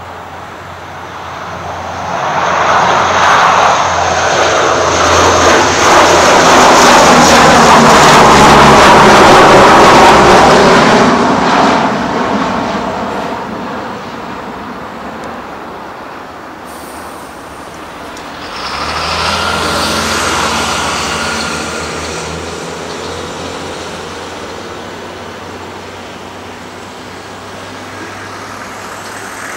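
Antonov An-12's four Ivchenko AI-20 turboprop engines at takeoff power as the aircraft lifts off and goes by: a loud drone whose pitch falls as it passes, loudest about ten seconds in, then fading as it climbs away, with a brief second swell about twenty seconds in.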